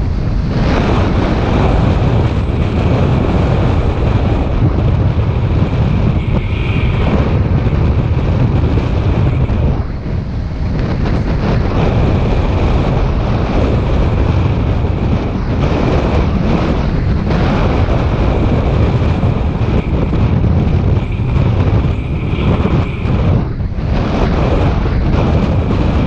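Wind buffeting the microphone on a moving Inmotion V12HT electric unicycle: a loud, steady rumble with a thin high whine that comes and goes.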